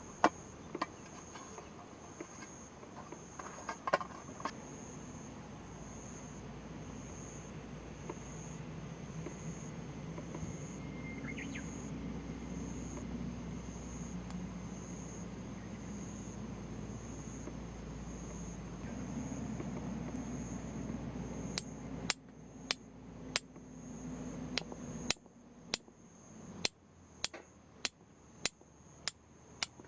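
An insect chirping steadily in one high, evenly pulsing note. In the last third comes a run of about a dozen sharp knocks, one or two a second.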